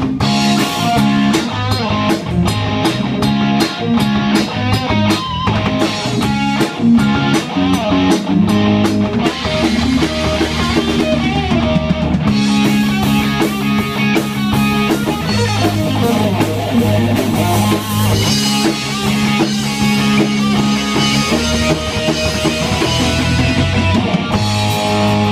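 A rock band playing live: electric guitars over a drum kit, loud and steady throughout.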